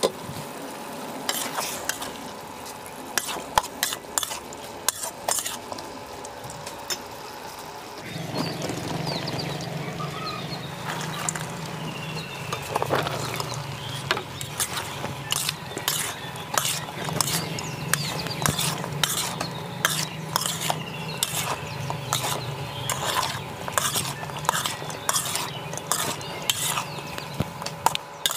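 A spatula stirring food in a cooking pot, with repeated scrapes and clinks against the pan over a light sizzle. The strokes come faster in the second half. A low steady hum joins about eight seconds in and stops shortly before the end.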